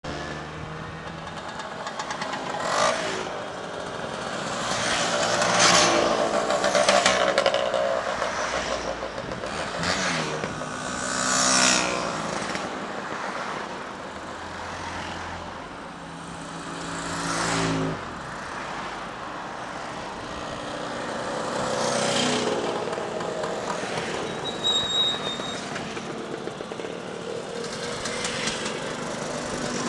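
A steady stream of motor scooters riding past one after another, their small engines swelling and fading as each goes by, with the odd van or car among them. A short high-pitched beep sounds late on.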